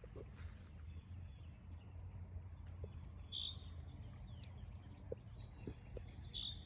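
Quiet outdoor ambience with a steady low rumble and a bird chirping briefly twice, about three and a half seconds and six and a half seconds in.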